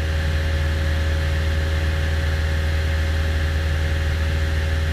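Cessna 172's piston engine and propeller running steadily in flight, a deep even drone heard from inside the cabin.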